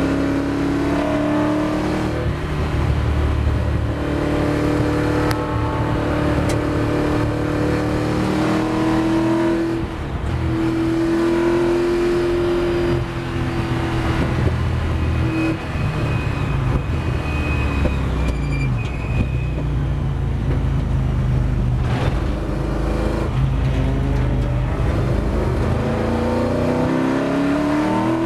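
Ford GT40 V8 engine heard from inside the cockpit at racing speed. It pulls hard with rising revs, dips briefly at gear changes, comes off the power under braking, then revs up again near the end.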